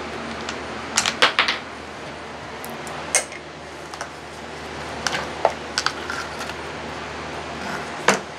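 Metal hand tools clinking and knocking against the parts of a chainsaw being taken apart: short sharp clicks, three close together about a second in, then single ones every second or two.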